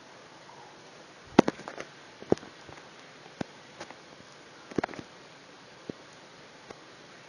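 Scattered sharp clicks and knocks, a quick cluster about a second and a half in and then single ones every second or so, over a faint steady hiss.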